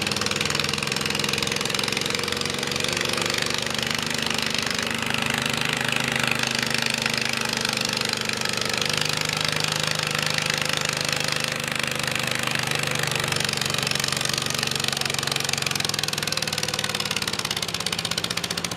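Garden pulling tractor's engine running hard under load as it drags a weight-transfer sled down a dirt pull track. The engine holds a steady drone and steps up slightly in pitch about nine seconds in.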